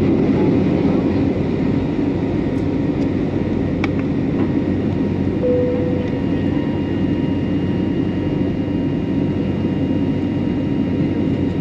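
Steady roar of an Airbus A321's engines and airflow, heard inside the cabin from a window seat just ahead of the engine. A short tone sounds about halfway through.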